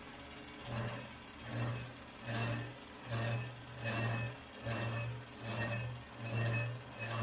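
Metal lathe spinning a warped axle shaft. A low mechanical hum, with a lighter whir above it, swells and fades evenly about every 0.8 seconds.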